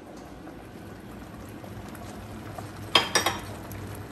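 Steady bubbling of pots cooking on a gas stove, with a quick run of sharp, ringing clinks of cookware about three seconds in.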